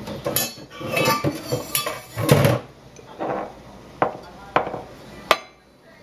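Metal kitchenware clattering and clinking as it is handled. There is a run of louder clanks in the first half, then three separate sharp clinks near the end.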